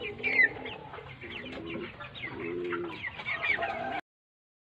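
A flock of broiler chickens calling: many short, high, falling chirps mixed with some lower clucks, cutting off suddenly about four seconds in.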